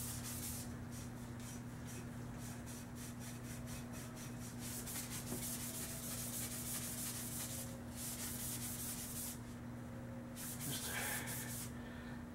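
A green abrasive pad rubbed back and forth along a bare metal air-rifle barrel in quick, scratchy strokes, pausing briefly twice in the second half. The barrel is being polished by hand before bluing, to take out the machining rings. A steady low hum runs underneath.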